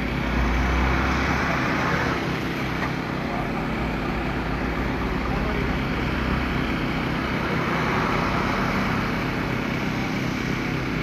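A motor vehicle engine running steadily, with a constant wash of road and traffic noise.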